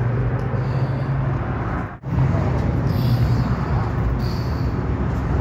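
City street traffic noise with a steady low engine hum. The sound drops out briefly about two seconds in.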